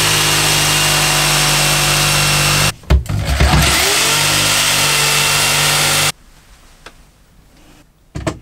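Electric jigsaw cutting into a wooden wall panel. It cuts out briefly about three seconds in, spins back up and cuts again, then stops about six seconds in. A knock follows near the end.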